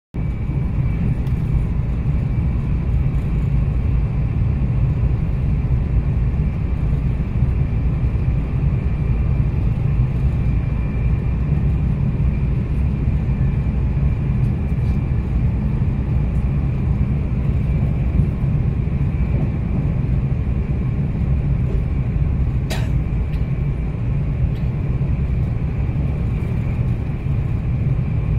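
Cabin noise inside a Meitetsu 2200 series electric train running at speed: a steady rumble of wheels on rail, with a faint steady high tone over it. A single sharp click about 23 seconds in.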